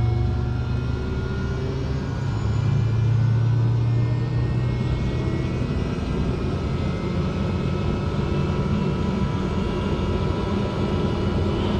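Pratt & Whitney PT6A-66D turboprop of a TBM 850 spinning up during an engine start, just after fuel is introduced on the starter, heard inside the cockpit. A steady low rumble carries whining tones that climb slowly in pitch as the engine accelerates.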